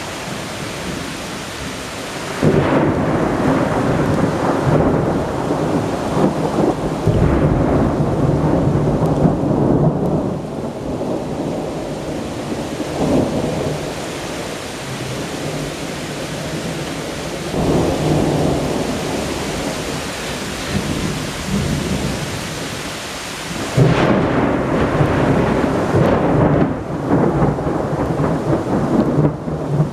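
Strong thunderstorm: steady rain with long rolls of thunder, one building a few seconds in, another past the halfway point and a loud one near the end.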